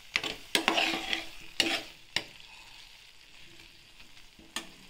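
Metal spoon scraping and knocking against a metal pan, stirring an onion-tomato masala that is frying dry in oil on a low flame, over a light sizzle. Most of the strokes come in the first two seconds, with one more knock near the end.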